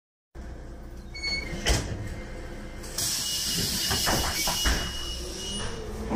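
City bus's engine running, with a sharp knock a little under two seconds in, then a long hiss of compressed air from the bus's pneumatics starting suddenly about three seconds in.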